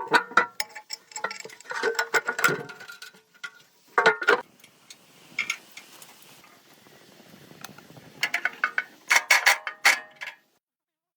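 Bursts of metallic clinking and clicking, as of hand tools and metal parts knocking together. The bursts come in several irregular clusters and stop abruptly near the end.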